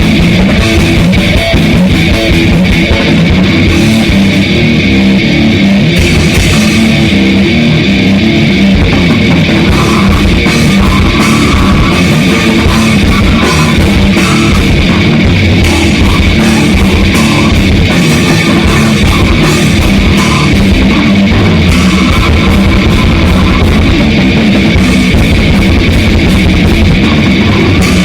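Grindcore band playing in rehearsal: heavily distorted electric guitar over fast, dense drum-kit hits, loud and continuous with no breaks.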